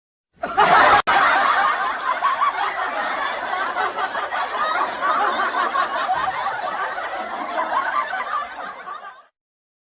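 Laughter sound effect: snickering, chuckling laughter that starts about half a second in, runs steadily for nearly nine seconds and cuts off abruptly near the end, with a sharp click about a second in.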